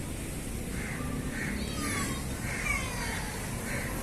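Crows cawing repeatedly, short harsh calls about every half second, over steady outdoor background noise.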